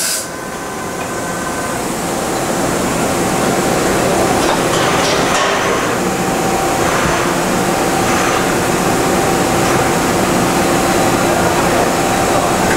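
Okuma MC-50H CNC horizontal machining center running through a dry-run program: a steady machine hum with several held tones over an even hiss. It grows a little louder over the first few seconds.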